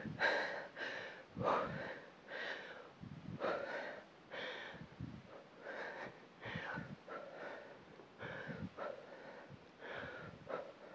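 A woman breathing hard in short, repeated in-and-out puffs, about one to two a second, from the effort of swinging a heavy dumbbell through woodchop reps.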